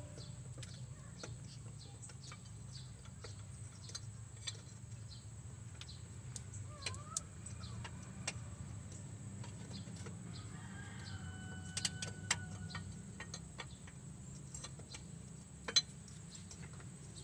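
Scattered light metallic clicks and clinks of hand tools on a truck diesel's injection pump as it is bolted to the engine block, the sharpest a little before and after the twelve-second mark and near the end. Underneath runs a steady low hum, and chickens cluck, with a drawn-out call about eleven seconds in.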